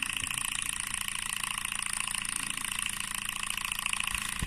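Small single-piston Stirling engine running steadily, its piston and crank making a rapid, even clatter; it is running freely after a clean.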